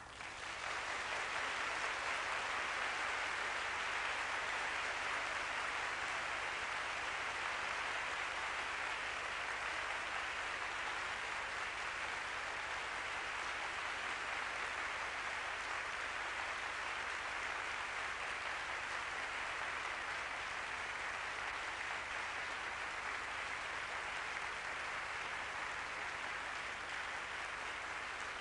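Audience applauding: dense, even clapping that swells in the first second and then holds steady.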